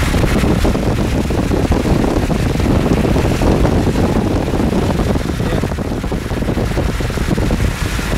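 Wind buffeting the microphone of a car moving at road speed, a steady low rush with rapid flutter, mixed with tyre and road noise.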